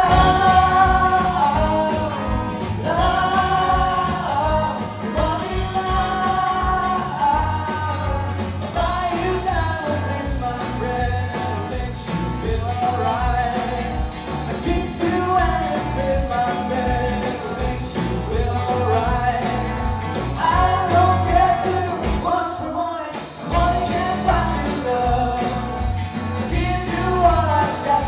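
Live rock band playing: electric guitars, bass and drums under lead vocals with several voices singing in harmony over a steady beat.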